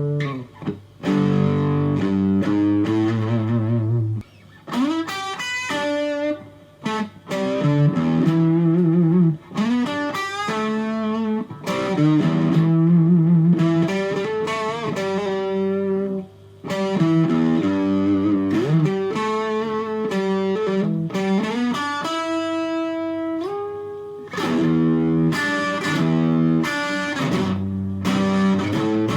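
Fujigen Stratocaster electric guitar played straight into a Fender Studio Valve tube amp: single-note lead phrases with short pauses and string bends, and a long held note that slides up and dies away about two-thirds of the way through before the playing picks up again.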